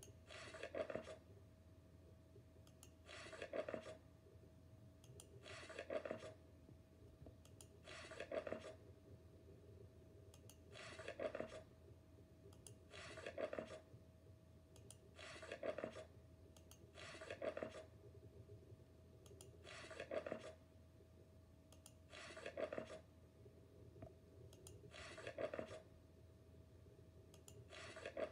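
Magazine pages being turned one after another: a short papery swish about every two and a half seconds, a dozen in all, over a faint steady hum.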